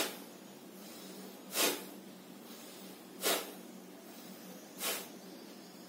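A man breathing bhastrika pranayama (bellows breath): four sharp, forceful breaths through the nose, about one every second and a half, at a moderate pace.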